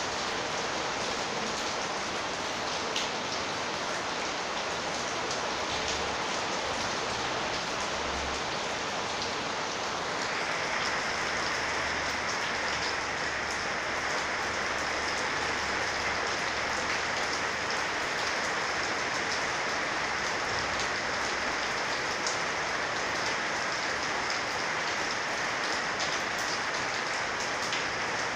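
Heavy rain pouring on a corrugated metal roof, an even dense hiss with scattered drop ticks. About ten seconds in the downpour grows heavier and brighter and stays so.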